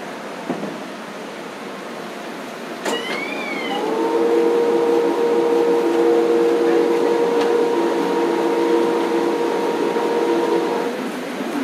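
Banknote printing press: a click about half a second in and a sharp click about three seconds in, then a steady pitched hum of several tones starts about four seconds in and cuts off about seven seconds later, over a constant machine hiss.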